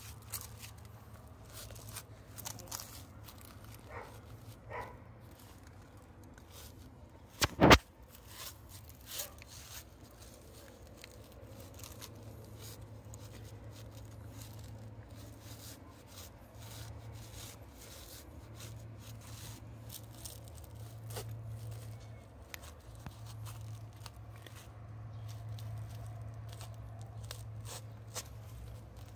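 Feet in thin socks stepping and scuffing over rock and dry leaves: scattered small crackles and crunches, with one loud knock about eight seconds in, over a steady low hum.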